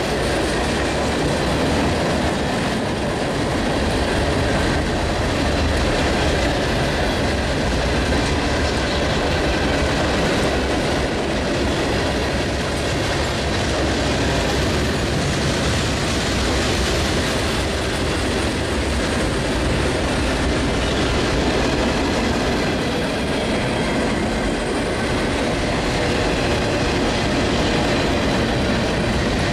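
Freight cars (tank cars, covered hoppers and boxcars) rolling past on the track, a steady rumble of steel wheels on the rails.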